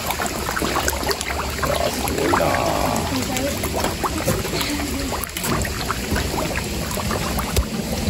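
A packed crowd of carp and koi thrashing and gulping at the water surface for food: constant splashing with many short sucking pops and slurps.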